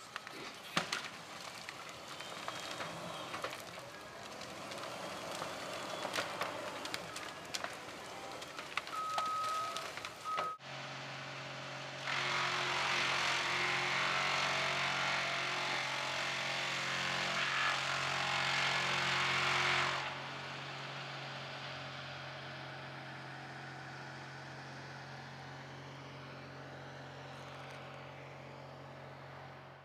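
Heavy forestry machinery in a clearing. First a Cat wheeled skidder rumbles along with many sharp cracks and clicks. Then, after an abrupt change, a wood chipper's engine runs with a steady hum, and from about twelve to twenty seconds a loud rushing sound of chipping sits over it. The engine then runs on, slowly fading.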